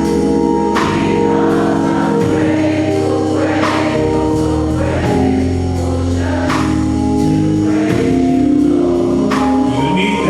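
Gospel choir singing over sustained keyboard chords, with a slow steady beat about every second and a half.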